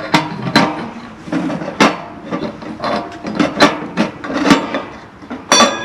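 A run of about a dozen sharp knocks and clatters. About five and a half seconds in comes a louder metallic clang that keeps ringing.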